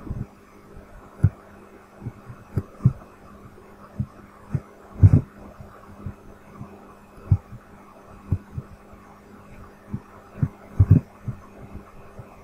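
Irregular dull clicks and taps of a computer mouse and keyboard in use, picked up as low knocks, over a steady electrical hum.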